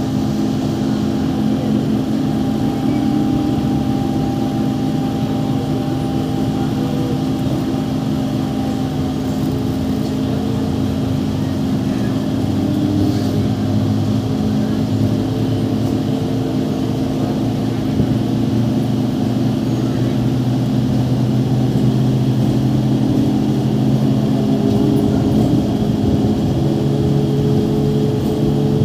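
A MEMU electric multiple unit moving at low speed, heard from inside the coach. Its motors and electrical equipment make a steady layered hum, with a higher whine that rises gently in the second half.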